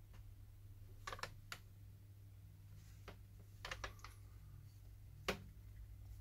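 A few scattered small clicks and taps from hands handling a smartphone and repair tools on a bench, the sharpest one near the end, over a faint steady low hum.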